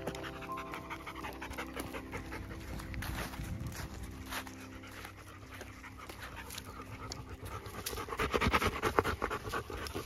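Bernese mountain dog panting close up, growing louder over the last two seconds.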